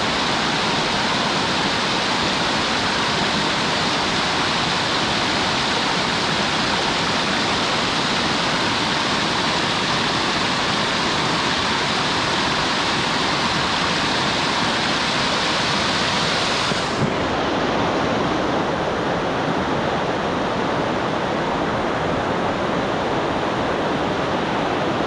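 Rushing water of a waterfall, a loud steady rush. About seventeen seconds in, its high hiss drops away suddenly, leaving a duller rush.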